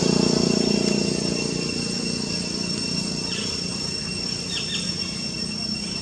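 Steady high insect drone made of two thin unbroken tones, with a low hum fading out over the first second or so. A few faint short chirps come around the middle.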